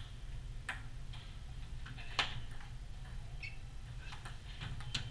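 Table tennis rally: the celluloid ball clicking off the paddles and the table in a string of sharp, unevenly spaced taps, the loudest about two seconds in, over a steady low hum.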